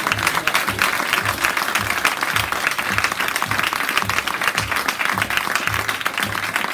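Audience applauding, over background music with a steady beat.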